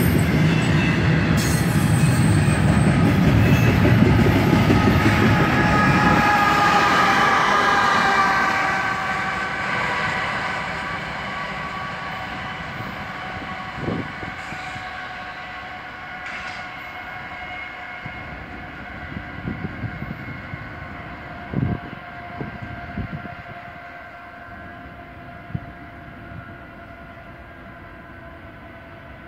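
CSX double-stack intermodal freight train rolling past, wheels rumbling loudly on the rails for the first few seconds. The train then draws away and the rumble fades, leaving a thin high ringing from the train that dips slightly in pitch and dies down, with a few faint knocks along the way.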